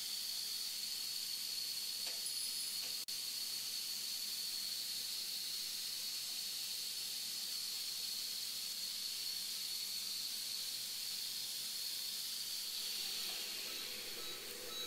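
Surgical laser unit hissing steadily with a faint high whine while the laser is in use. The hiss eases off near the end.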